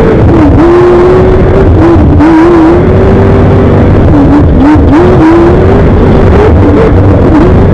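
Class 1 off-road race car's engine running loud at high revs, its pitch dipping and climbing back several times as the throttle is lifted and reapplied.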